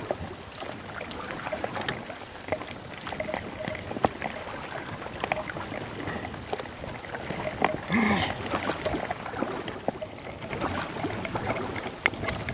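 Paddling on a river: paddle strokes splashing in the water, with irregular small knocks and clicks and a brief louder splash about eight seconds in.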